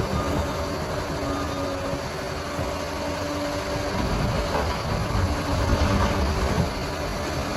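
Bulldozer's diesel engine running steadily, its low rumble growing louder about halfway through.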